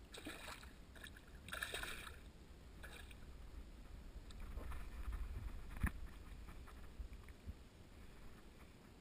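Water splashing in three short bursts as a large hooked fish thrashes at the surface close by. This is followed by a low rumble and a single sharp knock about six seconds in.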